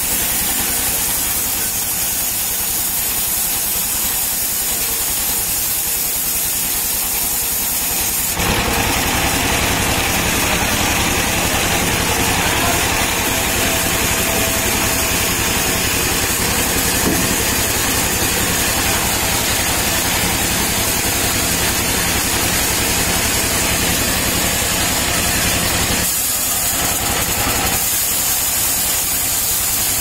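Sawmill circular saw bench running steadily, turning harsher and louder from about 8 seconds in as a palm trunk is fed through the blade, easing briefly a few seconds before the end, then cutting again.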